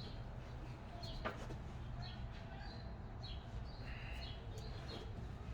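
Faint high chirps scattered over a low steady hum, with a single click about a second in.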